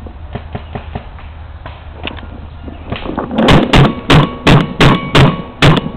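Paintball marker firing close to the microphone: a rapid string of loud, sharp shots, about three to four a second, starting a little over three seconds in after a few lighter clicks.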